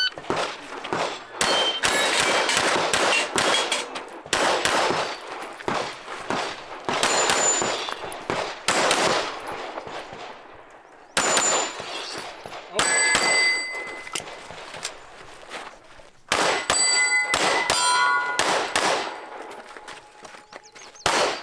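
Handgun shots fired in fast strings through a competition stage, with steel targets ringing as they are hit. There is a short pause about ten seconds in, and the clearest rings of struck steel come in the second half.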